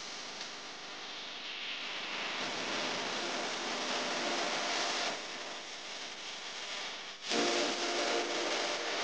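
Hands squishing and rubbing a mashed poha-and-potato mixture against a steel plate, a steady scratchy hiss. About seven seconds in, a louder noise with a steady hum comes in suddenly.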